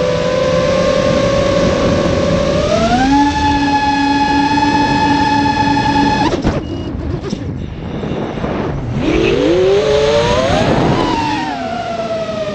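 FPV quadcopter's electric motors and propellers whining, heard from the onboard camera. The pitch rises about three seconds in as the quad climbs, then cuts off abruptly, leaving a rough rush of air as it drops. The whine rises again near the end as the throttle comes back up, then settles to a steady pitch.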